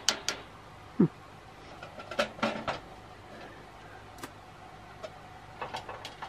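Light metallic clicks and clatter of a heater's sheet-metal housing and thin copper reflector panel being handled and pried loose with a screwdriver. The clicks come in short scattered clusters.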